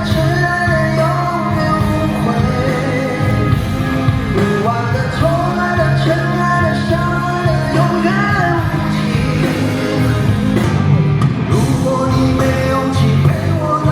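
Pop-rock song: a sung melody with held notes over a full band with a steady bass line.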